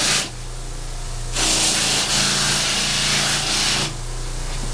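Bench grinder motor humming steadily while a tan suede combat boot is pressed against its spinning wheel, a harsh scrubbing hiss as the wheel roughs up and cleans the leather. The scrubbing stops just after the start and comes back about a second and a half in for some two and a half seconds.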